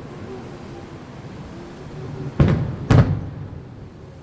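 Two aerial firework shells bursting about half a second apart, sharp booms that each trail off briefly.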